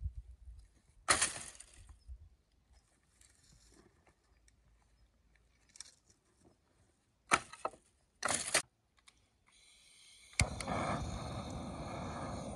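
Dry branches and dead reeds crackling and clattering in a few short bursts as sticks are dragged and stacked onto a pile. About ten seconds in, a sharp click is followed by the steady hiss of a butane blowtorch burning.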